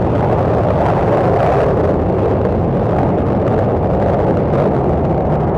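Three Pratt & Whitney JT8D-17R turbofans of a Boeing 727-200 freighter running at takeoff power during the takeoff roll, a loud, steady, deep jet noise. Gusty wind buffets the microphone.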